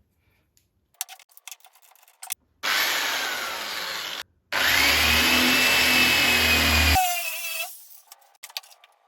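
Power drill boring into wood with a 25 mm Forstner bit in two bursts of a couple of seconds each. The second burst ends as the motor winds down with a falling whine, and a few light knocks come before and after.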